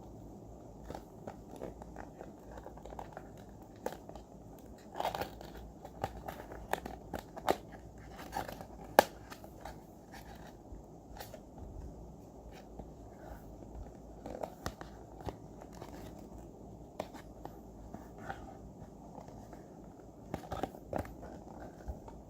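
Packaging being handled and opened by hand: scattered crinkles, rustles and small clicks and taps, busiest in the middle, with one sharp click about nine seconds in.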